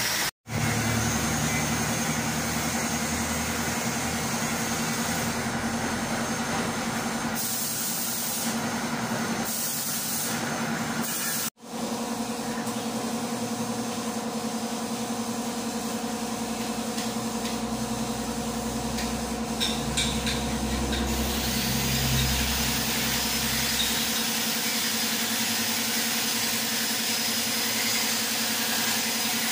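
Metal lathe running: a steady motor and gear hum with an even hiss over it, cut off by a brief silent gap twice.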